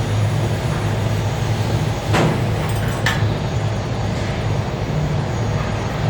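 A steady low buzzing hum under a hiss, broken by two short sharp clicks about two and three seconds in.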